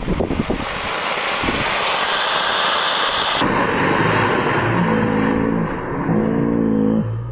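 An anar (flower-pot fountain firework) burning with a steady loud hiss as it sprays sparks, fixed to a stick as a makeshift rocket. Guitar music comes in over it about five seconds in.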